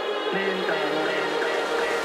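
Background electronic music: sustained synth chords, a low bass note coming in about a third of a second in, and a light repeating figure of high notes.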